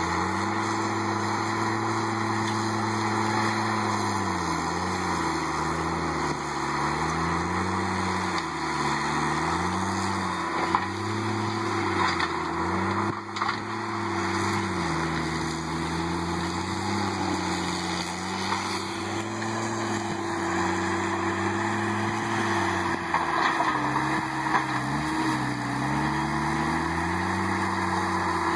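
John Deere compact track loader's diesel engine running hard under load, its pitch dipping and recovering again and again as it lugs while clearing trees and brush.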